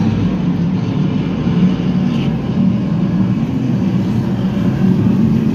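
A pack of BriSCA F1 stock cars' V8 engines running together as the cars come round the bend, a loud, steady, low engine noise.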